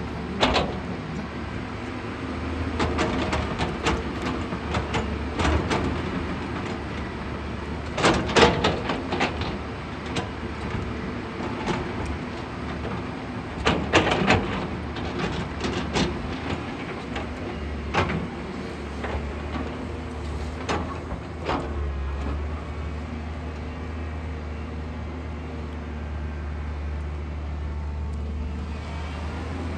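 A JCB excavator's diesel engine running steadily while digging. Repeated clanks and scrapes from the bucket and boom working the soil come in clusters through the first two-thirds, then the engine runs on alone near the end.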